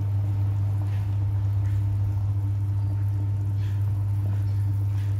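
Pot of soup boiling, with faint scattered bubbling pops over a loud, steady low hum.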